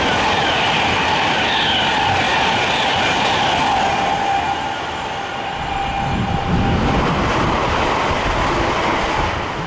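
Class 390 Pendolino electric train running through at speed: a loud, steady rush of wheels and air with a high whine that slowly falls in pitch. Towards the end a deeper rumble takes over.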